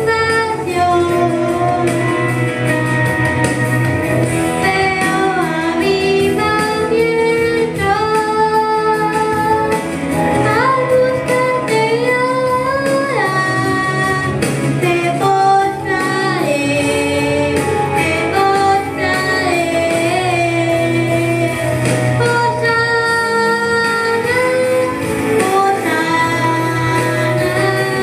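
A young girl singing a praise song (alabanza) into a handheld microphone, with held notes and sliding pitches, accompanied by a guitar.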